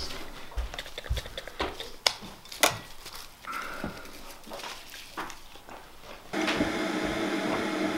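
Foil and plastic wrappers crinkling and rustling as they are unwrapped, with scattered light clicks and taps of a knife and small objects on the table. About six seconds in, a steady hum comes in.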